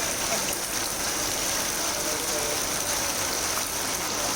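Heavy rain falling steadily, an even hiss with no separate events.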